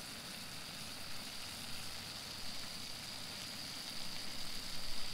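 Hash browns frying in butter in a nonstick skillet: a steady, even sizzle, with a thin high tone held over it.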